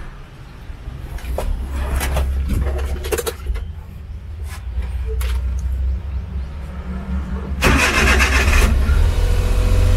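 Suzuki Multicab's 660 cc three-cylinder engine being started: a few clicks and knocks in the cab, then near the end the starter cranks briefly, the engine catches and runs.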